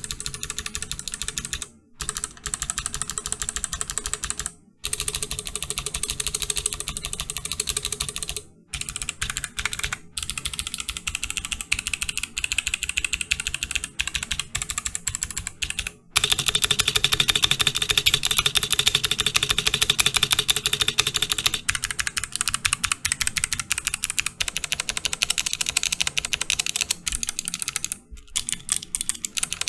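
Typing on a Cannon Keys Practice 65 v2 mechanical keyboard fitted with clicky Kailh BOX Navy switches: a fast, continuous run of sharp key clicks with a few brief pauses. It gets louder about halfway through.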